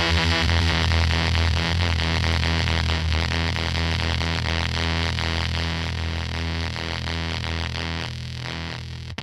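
Electric guitar played through a Pigtronix Space Rip subsynth pedal: a distorted, synth-like sustained tone with a heavy low octave underneath, slowly fading over several seconds before a new note is struck at the very end.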